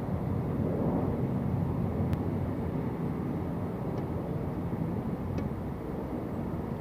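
Steady low rumble of outdoor ambience, with a faint click about two seconds in.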